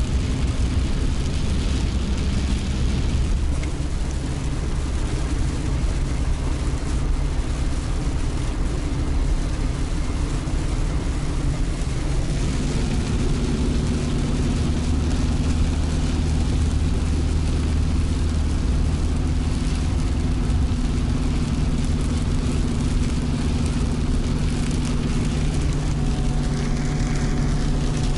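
VAZ 2106 four-cylinder engine running steadily as the car drives on a wet road, heard from inside the cabin over a haze of tyre and rain noise. The engine note steps up a little about twelve seconds in.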